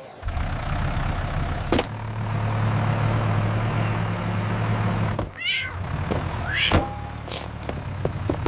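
Tractor engine running steadily, with one sharp thunk about two seconds in. The engine drops out about five seconds in while a cat yowls twice, the second a rising screech, then the engine comes back.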